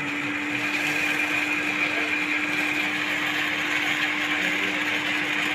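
Induction cooker running with its cooling fan spinning: a steady hum and whir that does not change.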